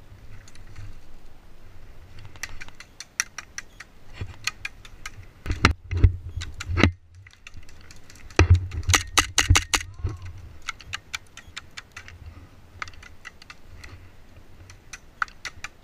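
Runs of rapid sharp clicks and clatter over low thumps, loudest about six and nine seconds in: airsoft guns firing in strings, mixed with footsteps on loose stones.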